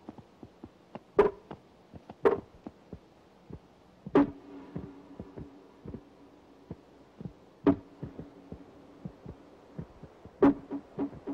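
Bighorn rams clashing horns: five loud cracks spaced one to three seconds apart, some followed by a short ringing, among many smaller clicks.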